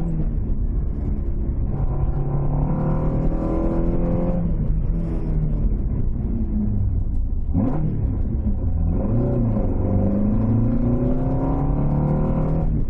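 Toyota 5-valve 4A-GE four-cylinder on 50 mm Weber carburettors, loud under acceleration. Its pitch climbs, drops back about four and a half seconds in, then climbs again from about nine seconds until near the end. There are two short sharp sounds, one at the start and one about seven and a half seconds in.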